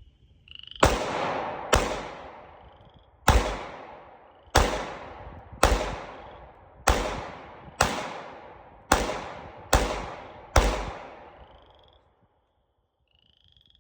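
Ten shots from a 9mm Glock pistol fired in quick succession, about a second apart at an uneven pace, each ending in a long echoing tail.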